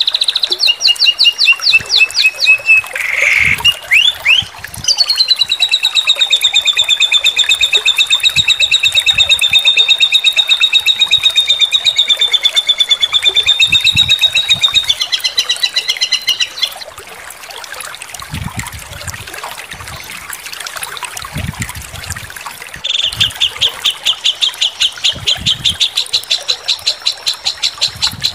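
Songbird singing rapid trills of fast-repeated high notes: a few short trills at first, then one long even trill held about twelve seconds that wavers and dips near its end. After a quieter pause of about six seconds, another fast trill starts near the end.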